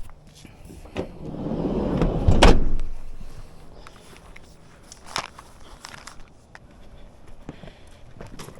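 A vehicle door swung and shut with one loud thump about two and a half seconds in, followed by scattered footsteps and light knocks.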